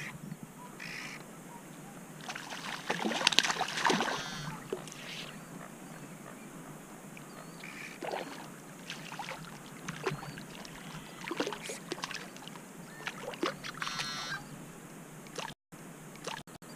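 A hooked trout splashing at the water's surface as it is played in on a fly rod: irregular splashes, the strongest about three seconds in.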